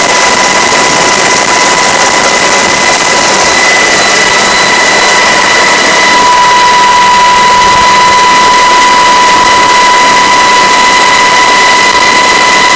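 Loud, steady in-flight cabin noise of a Coast Guard MH-60 Jayhawk helicopter with the side door open: a wide hiss of rushing air and turbine noise with a constant high whine.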